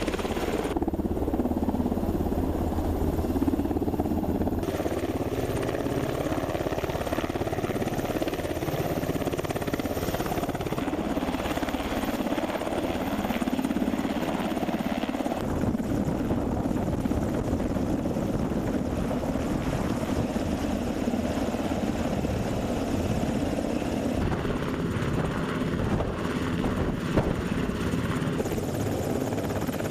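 Sikorsky UH-60 Black Hawk hovering low, its twin-turboshaft engines and rotors making a steady, loud helicopter noise. The sound changes abruptly a few times, near the start and about halfway through.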